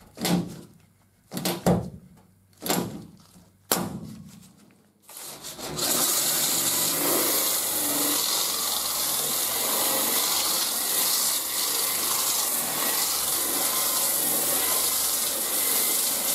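A hand pop-rivet gun setting rivets in sheet metal, four sharp snaps about a second apart. From about five seconds in, a sander with a 36-grit fiber resin disc grinds bare steel steadily, cleaning the area for body filler.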